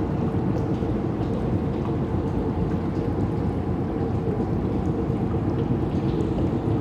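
Abandoned factory ambience: a steady low rumble with a faint hum through it and scattered faint ticks.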